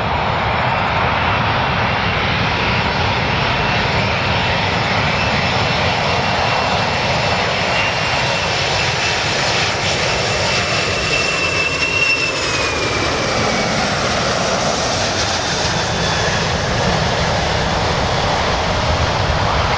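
Large airplane's engines running loud and steady, with a high whine in the noise that dips in pitch about twelve seconds in.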